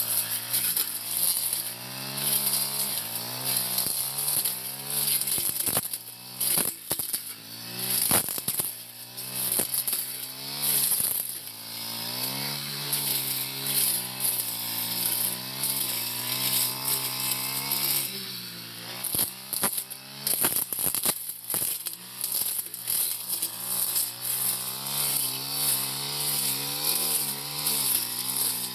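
Four-stroke brush cutter engine running at working revs, its pitch wavering up and down as it cuts through tall grass and brush, with bursts of sharp clicks twice, about a quarter of the way in and again past the middle.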